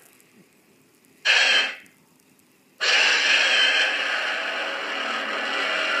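Roar sound effects of the Toho film monster Varan played back: a short cry about a second in, then a long drawn-out cry starting near the middle that carries on.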